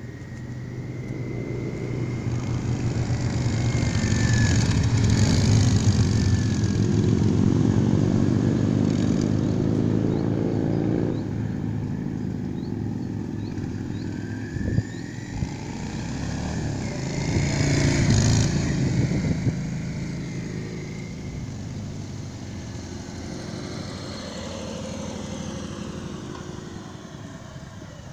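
Yamaha XVS 650 Dragstar's V-twin engine as the cruiser rides around. It comes close twice, loudest about five seconds in and again around eighteen seconds, its pitch rising and falling with the throttle, and fades away between and after. A single sharp click near fifteen seconds.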